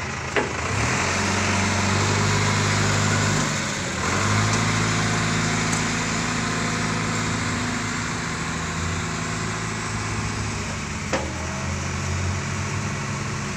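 Crane truck's engine running while its boom crane is worked, the engine note stepping up about a second in and dipping briefly around four seconds and again near eleven. A sharp knock about half a second in and another near eleven seconds.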